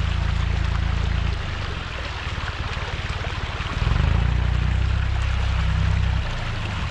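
Muddy water rushing along a flooded dirt track and pouring over a low bank, with a low rumble that drops away about a second and a half in and comes back near the middle.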